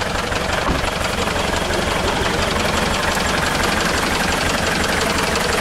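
Off-road 4x4's engine idling steadily with the bonnet open, running hot after a failed climb.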